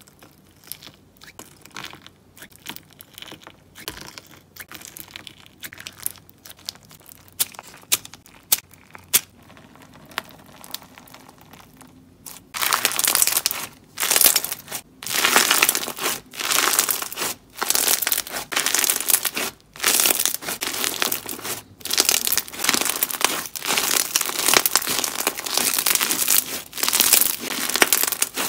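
Crunchy bead-filled slime worked by hand, crackling and popping. Soft scattered crackles come as fingers poke it, then from about twelve seconds in there are loud, dense crunching bursts with each squeeze.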